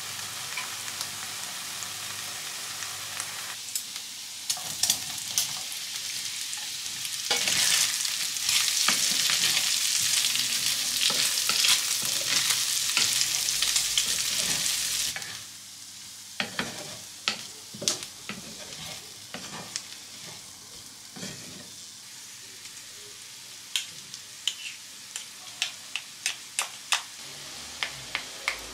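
Bacon pieces, later joined by chopped onion, frying in their own fat in a frying pan and sizzling steadily while a wooden spatula stirs and scrapes them. The sizzle is loudest through the middle and drops suddenly about halfway through. The rest is a quieter fry with sharp taps and scrapes of the spatula against the pan.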